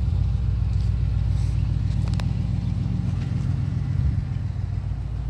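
2006 Chrysler 300 SRT8's 6.1-litre Hemi V8 idling steadily with a low, even rumble, still warming up after a cold start.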